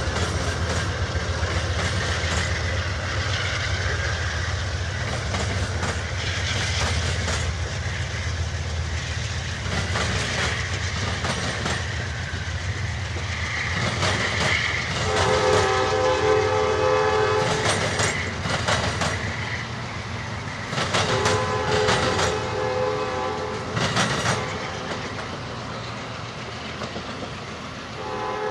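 Amtrak Crescent passenger cars rolling past at speed, a steady rumble with wheels clicking over the rail joints. The P42DC locomotives' multi-note horn, at the head of the train and moving away, sounds a long blast about halfway through, another a few seconds later, and starts again at the very end.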